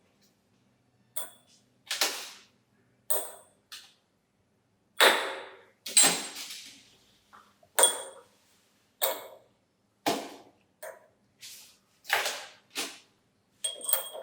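Metal parts being knocked or struck, about fourteen sharp clanks at irregular intervals, each ringing out briefly.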